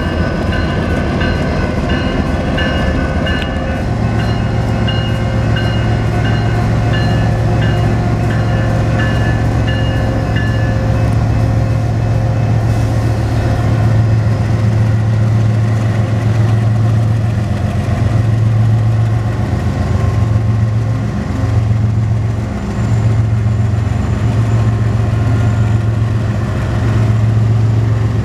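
BNSF freight train's diesel locomotives passing close by, their engines a deep steady hum that builds about four seconds in. A grade-crossing bell rings in evenly repeated dings through the first ten seconds or so.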